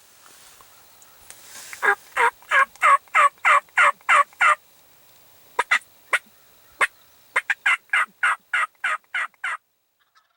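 Turkey yelping: a run of about nine short notes at about three a second, each dropping in pitch. After a pause broken by a few single sharp notes, a second run of similar yelps follows near the end.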